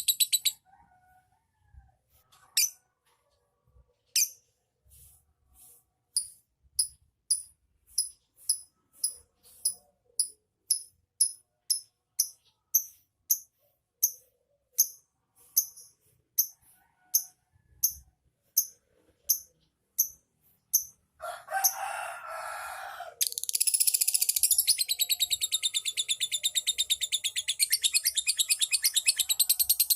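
Lovebird calling: a few single sharp chirps, then a run of chirps that quickens to about two a second. A brief harsher, noisier call follows, and near the end the bird breaks into a long unbroken rapid chattering trill, the lovebird's 'ngekek'.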